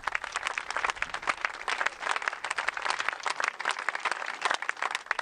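Crowd applauding: many hands clapping at once in a dense, continuous patter.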